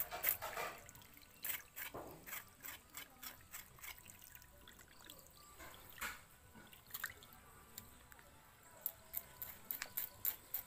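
Knife working a wet reticulated python carcass on wet concrete: a run of short, sharp, wet scrapes and drips, thicker in the first second and again near the end, sparser in between.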